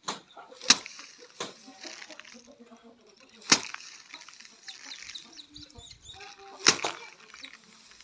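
Bundles of harvested rice stalks beaten by hand against a wooden threshing block to knock the grain out: sharp thwacks, the hardest three about three seconds apart with lighter strikes between, and the straw rustling. Chickens cluck faintly in between.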